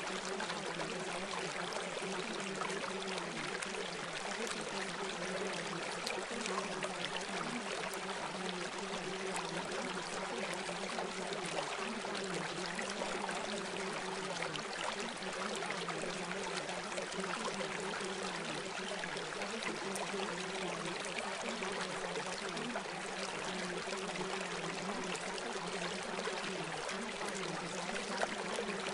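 Steady running-water sound like a stream, unchanging throughout, with a faint low hum underneath that wavers slightly in pitch.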